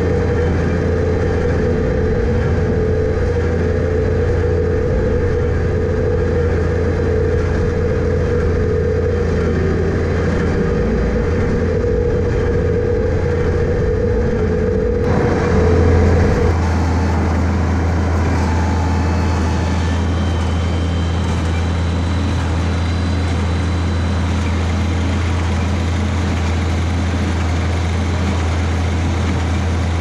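Tractor engine running steadily under load while powering an International small square baler that is picking up and baling grass hay. About halfway through the sound shifts and briefly swells louder, then settles into the same steady running.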